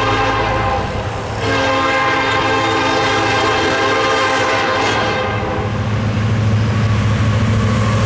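Union Pacific freight locomotive's multi-chime air horn sounding at a grade crossing: a short blast, then a long one that ends about five seconds in. The locomotives' diesel engines then run louder as the train draws near.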